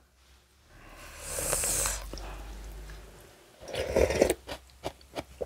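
A person slurping noodles in one long noisy slurp of about three seconds, then a shorter, louder slurp followed by a few small clicks.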